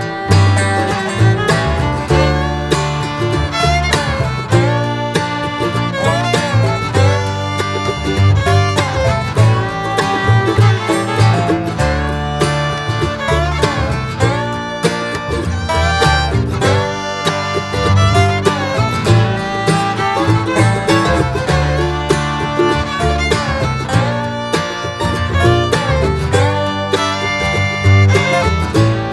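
Background music, a bluegrass-style tune with fiddle and guitar over a steady beat.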